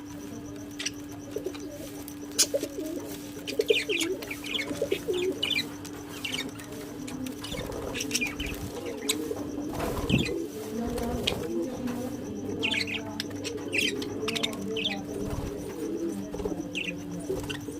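Pet parrots calling: scattered short high chirps, with lower warbling, cooing-like calls in between.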